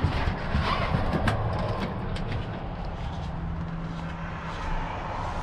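Several sharp clicks and knocks in the first two seconds from a hand working the crank knob of a VW Westfalia's louvred side window, over a steady background hiss. A low steady hum comes in for about two seconds past the middle.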